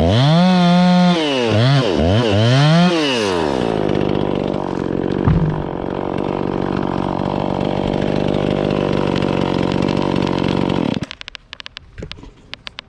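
Chainsaw engine revved hard three times in quick succession, then dropping back to a steady idle. About eleven seconds in it stops abruptly, leaving a few faint clicks.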